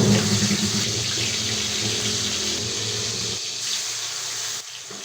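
Tap water running steadily into a sink, dropping off about four and a half seconds in.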